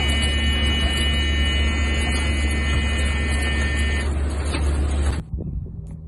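Loud, steady engine and wind noise inside a military transport aircraft at its open jump door as paratroopers exit on static lines. It cuts off suddenly about five seconds in, leaving much quieter outdoor sound.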